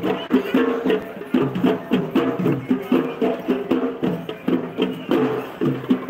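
Live procession music: a repeating melody over a steady beat of sharp percussion strokes.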